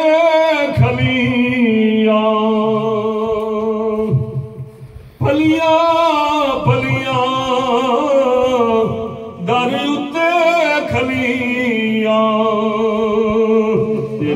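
A man's solo unaccompanied voice in melodic devotional recitation: long held notes with wavering, ornamented pitch. It comes in three phrases, split by short pauses for breath about four to five seconds in and about nine and a half seconds in.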